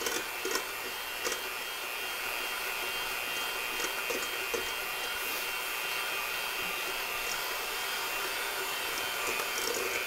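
Electric hand mixer running steadily at a constant speed, its beaters whisking egg yolks and sugar in a stainless steel bowl, with a few brief clicks in the first half.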